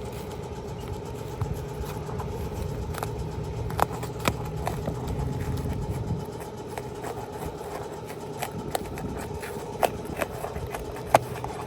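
A steady engine-like hum with a held tone. Over it come scattered sharp clicks and taps, about half a dozen, from hand tools working the wind-creased asphalt shingle loose.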